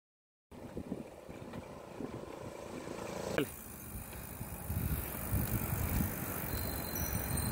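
Road bicycle rolling along a paved road, with wind rumbling on the microphone and tyre noise, starting about half a second in and growing louder; a single knock about halfway through.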